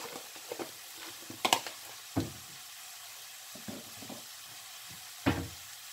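Diced vegetables (onion, carrot, celery, peppers) sizzling steadily in oil in a nonstick wok, with a few sharp clicks and pops scattered through.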